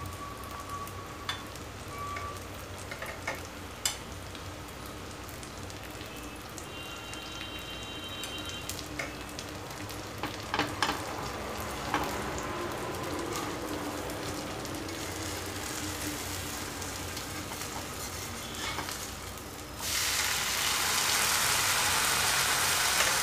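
Sabudana (tapioca sago) pancake frying in oil on an iron tawa, sizzling steadily, with scattered clicks and scrapes of a silicone brush and metal spatula against the pan. Near the end, once the pancake has been turned over, the sizzle suddenly gets much louder.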